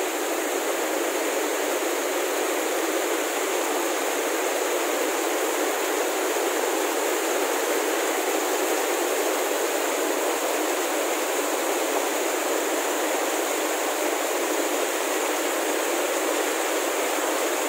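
Steady rush of a cascading mountain stream, white water pouring over boulders and spilling from a wooden flume, with no deep rumble.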